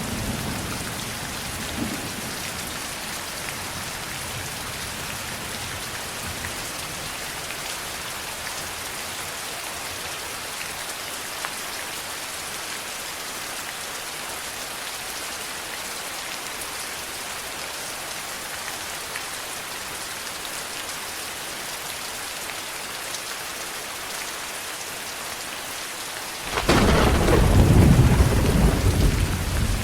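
Steady heavy rain on surfaces throughout, with the tail of a thunder rumble dying away at the start. Near the end a loud clap of thunder breaks in and rolls on as a deep rumble.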